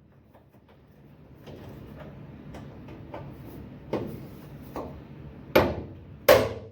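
Hammer blows on a hand impact driver set in a stuck door hinge screw: a couple of lighter knocks, then two hard metallic strikes in quick succession near the end, each blow meant to jar the screw loose.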